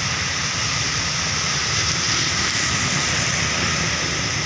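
Steady roar of road traffic, with bus engines running and passing, and no horn sounding.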